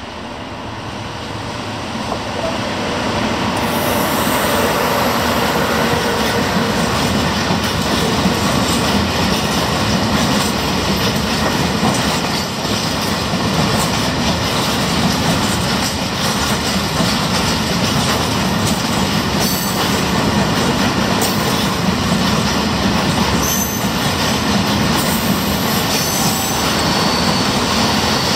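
Freight train of ballast hopper wagons hauled by an electric locomotive passing close by, wheels rumbling and clattering over the rail joints. The sound swells over the first few seconds as the locomotive draws level, then holds steady as the wagons roll past.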